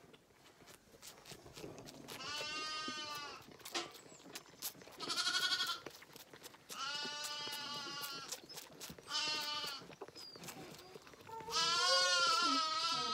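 Zwartbles lamb bleating: five separate calls a second or two apart, the last the longest.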